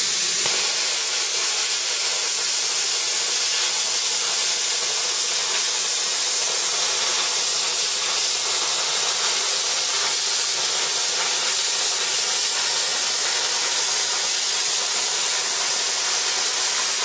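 Small 40-amp air plasma cutter cutting through 3 mm steel plate at its maximum 40-amp setting: a steady hiss of the arc and air jet that starts at once and holds unbroken, the sign of a fast, clean cut.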